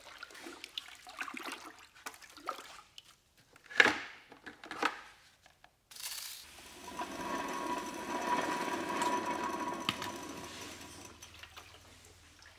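Water sloshing and splashing in a bucket as a gloved hand works in it, with two sharper splashes about four and five seconds in. About halfway through, a steady noise starts and runs for several seconds before fading.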